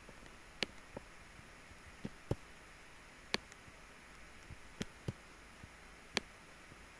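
Computer mouse buttons clicking about eight times at an uneven pace, some clicks in quick pairs, over a faint steady hiss of room tone.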